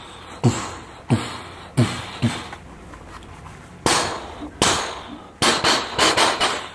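Toy pistol firing its gunshot sound effect as the trigger is pulled: four single shots, each dropping in pitch as it fades, two more after a pause, then a quick string of shots near the end.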